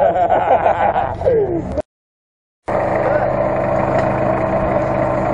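People talking briefly, then a short cut to total silence, then an Asia Rocsta off-roader's engine running steadily at a constant pitch.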